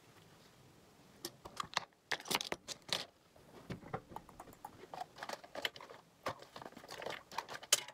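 Irregular small clicks, taps and rattles of makeup products and their packaging being handled on a table, starting about a second in.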